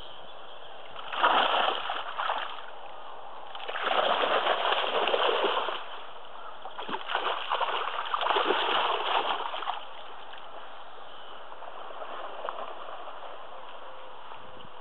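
Spawning carp thrashing and splashing in the reedy shallows, in three bursts of about two to three seconds each, the last dying away about ten seconds in.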